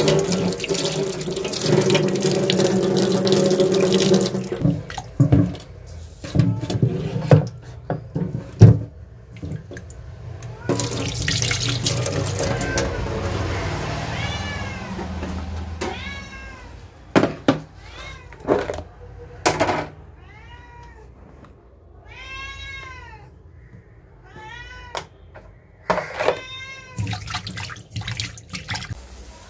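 Kitchen tap water running into a steel bowl of fish pieces in a sink, with the bowl clattering against the sink, then the tap running again. From about halfway through, a cat meows over and over in short rising-and-falling calls.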